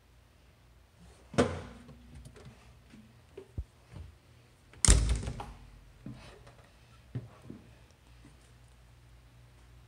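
Two heavy thuds on a fire engine's metal cab and body, about three and a half seconds apart, the second the louder with a short ring after it, with lighter knocks and clatter around them.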